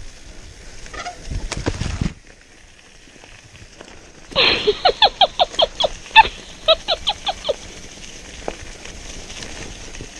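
A comic laughing sound effect, edited in: a quick string of about a dozen high-pitched 'ha' bursts over some three seconds. Before it, about a second of low rumble from the bike jolting down the dirt trail.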